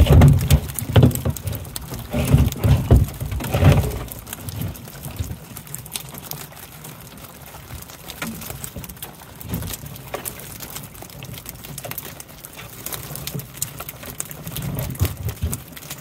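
A loaded wire catfish net being handled aboard a boat. Heavy knocks and thumps in the first four seconds, then lighter scattered clicks and pattering as the channel catfish flop against the wire and the boat.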